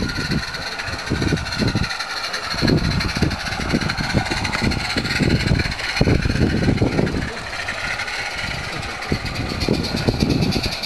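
Uneven gusts of wind rumbling on the microphone, over a steady high hiss.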